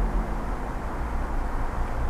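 Steady low rumble of distant traffic with a low engine hum, no distinct events.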